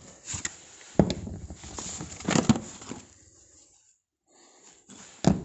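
Handling knocks from tools and the plastic tool box being moved about: one sharp knock about a second in, a short clatter of knocks around two and a half seconds, and another sharp knock near the end.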